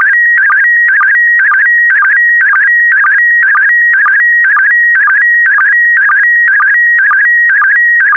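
Slow-scan TV (SSTV) signal in PD120 mode: a steady, high, warbling electronic tone whose pitch jumps around within a short pattern that repeats about twice a second. Each repeat begins with a brief lower sync blip. It is the audio carrying a photo, scanned a pair of lines at a time.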